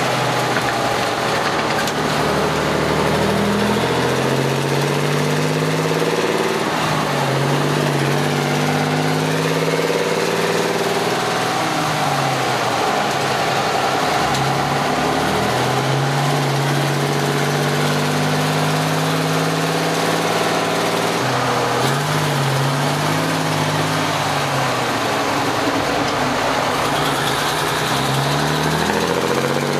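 1965 White Freightliner cabover's straight-piped Cummins NHC-250 inline-six diesel under way, heard from the cab: the engine note climbs, falls sharply and climbs again several times as the truck works through its gears.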